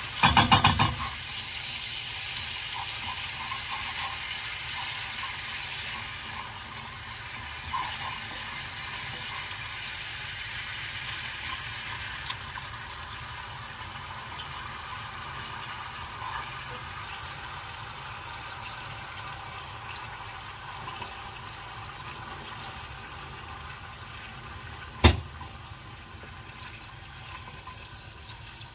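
A wooden spoon scrapes fast against a stone-coated pan, stirring a watery tomato-paste sauce for about the first second. Then the sauce simmers with a steady bubbling hiss. There is one sharp knock about 25 seconds in.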